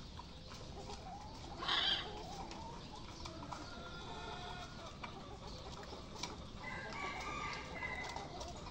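Gamefowl roosters crowing, one long crow about three seconds in and another near the end, with hens clucking. A short loud burst about two seconds in is the loudest sound.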